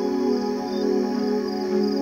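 Ambient background music of held, layered tones, with a low note changing near the end.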